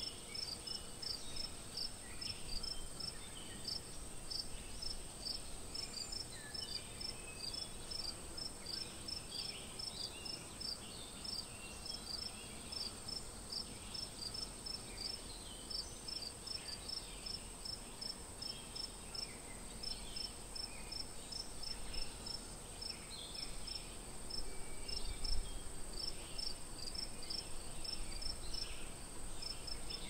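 Forest insects: a steady high-pitched drone with a quick, regular chirping over it, and fainter irregular high sounds in between.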